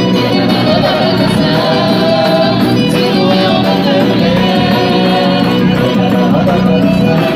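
Loud festa junina quadrilha music with a steady beat and singing.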